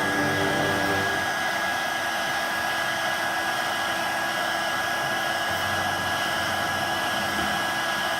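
Electric heat gun running steadily, a constant rush of blown air with a steady high whine, warming the adhesive under a phone's front glass.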